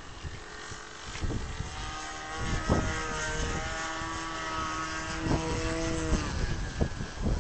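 Model aircraft engine droning as the plane flies past, a steady pitch that dips slightly before cutting off about six seconds in. Wind buffets the microphone throughout, with several sharp gusts.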